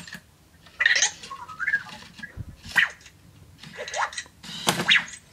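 Anki Vector robot making about four short electronic chirps and squeaks with wavering, gliding pitch, the first and longest about a second in.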